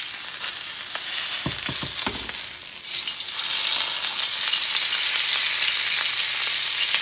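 Bison tomahawk steak sizzling in olive oil on a hot cast iron grill pan. There are a few soft knocks about two seconds in. From about three seconds in the sizzle grows louder and brighter as the steak, now flipped, lays its raw side on the hot ridges.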